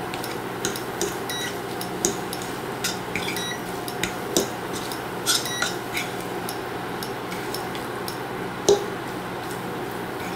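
Metal fork scraping and clicking against a nonstick frying pan while stirring scrambled eggs, in irregular strokes, with one louder tap near the end. A steady low hum runs underneath.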